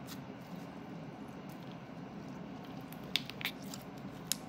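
Pink glitter slime being kneaded and pulled apart by hand, quiet at first, then a few sharp clicks from the slime a little after three seconds in and again near the end.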